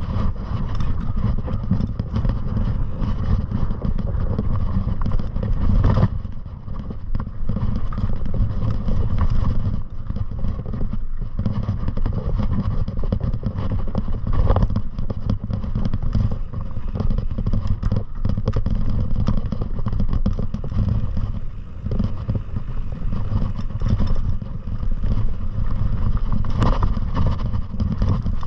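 Heavy wind rumble on the microphone during a fast downhill descent, with scattered knocks and rattles from the ride over rough ground.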